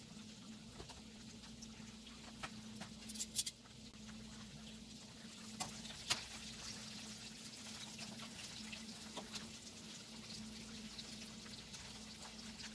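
Breaded chicken drumsticks sizzling in shallow frying oil, a steady hiss with scattered small pops. A few sharper clicks stand out about three seconds in and at six seconds, as tongs turn the pieces in the pan.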